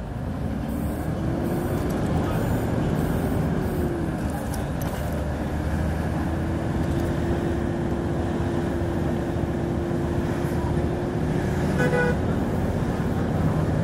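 2006 Hyundai Aero City 540 city bus engine running under load, with a steady whine that rises about a second in, dips briefly near four seconds, then holds level.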